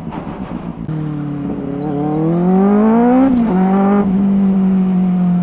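Benelli 600i's inline-four engine through dual SC Project slip-on exhausts, accelerating. The exhaust note climbs steadily for about two seconds, drops sharply at an upshift about three seconds in, then holds a steady pitch.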